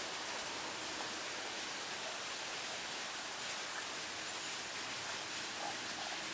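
A steady hiss, with a few faint, short low calls of a hidden Tago's brown frog (Rana tagoi) near the end.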